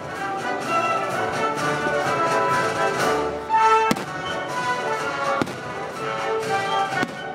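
Symphony orchestra playing, with strings and brass, while firework shells burst over it in several sharp bangs, the strongest about four seconds in.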